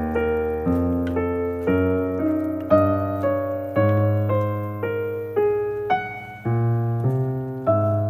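Solo piano background music: a slow, gentle melody of single decaying notes over lower bass notes, with a new note about every half second.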